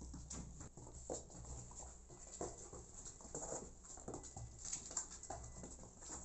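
Kittens and a cat moving about on a cardboard floor: faint, irregular rustling and scratching of paws and fur on cardboard.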